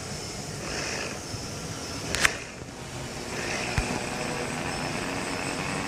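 Large multirotor drones (hexacopters and octocopters) flying overhead, their propellers whirring steadily with a faint whine that swells and fades. There is a sharp knock about two seconds in and a smaller one near the end.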